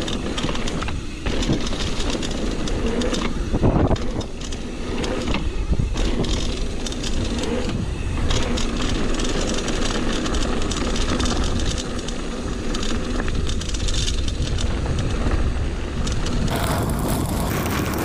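Mountain bike riding down a dirt trail: wind rushing over the microphone, tyres rolling on dirt, and the bike rattling over bumps.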